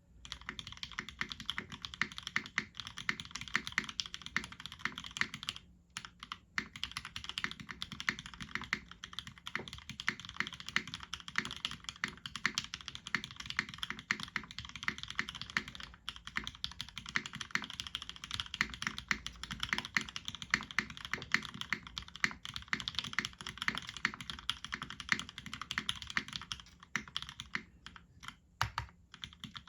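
Continuous fast typing on a custom RS60 mechanical keyboard with retooled Cherry MX Black linear switches in an aluminum full plate and GMK keycaps, a dense stream of keystrokes with brief pauses about six seconds in and near the end.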